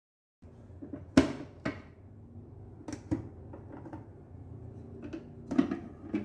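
Plastic dry box being handled and opened: a series of sharp clicks and knocks from the lid and its snap latches, about six in all, the loudest about a second in.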